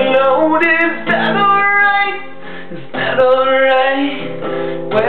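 A man singing with a nylon-string classical guitar accompaniment.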